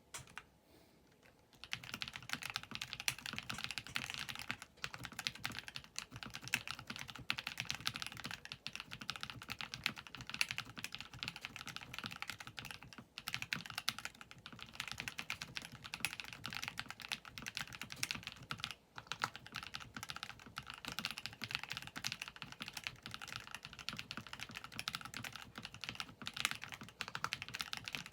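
Continuous fast typing on a ZiFriend T62 budget mechanical keyboard with KTT Rose linear switches, Dark Olivia clone keycaps and a plastic plate, dampened with a tape mod, burger mount, Holee-modded stabilizer, and clay and polyfill inside the case. The typing starts about a second and a half in and goes on with only a couple of brief pauses.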